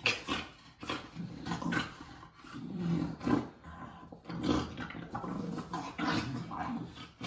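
Two French Bulldogs growling at each other in short, irregular bursts as they fight.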